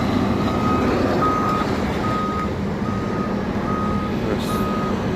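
A reversing alarm beeping about once a second, each beep a single steady tone, over the steady running of heavy construction machinery engines.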